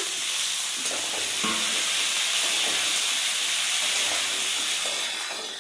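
Cubed potatoes, kohlrabi and peas sizzling steadily in hot oil in an aluminium kadai as they are stirred with a metal spatula, the spatula scraping and clattering against the pan.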